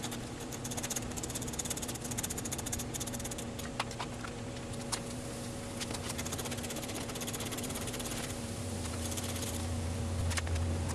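A 10 mm socket ratchet clicking in quick runs as the headlight mounting bolts are undone, over a steady low hum.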